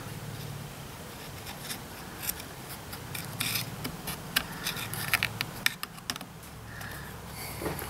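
A metal pick scraping and picking at the old carburetor gasket on the intake of a Stihl MS210 chainsaw: a run of small, irregular clicks and scratches over a faint low steady hum.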